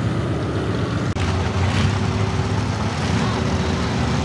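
Lifted 1971 Ford pickup mega truck's engine running steadily at a low, even speed, with a brief drop-out about a second in.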